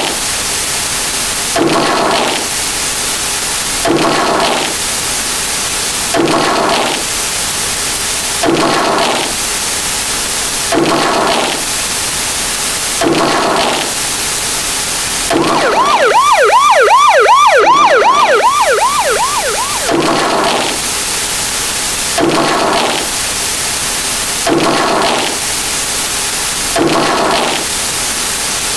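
A dense pile of layered sound effects: a constant loud hiss, a repeating effect that recurs about every two seconds, and, from about 15 to 20 seconds in, a fast-warbling siren-like tone that swells to the loudest point and then fades.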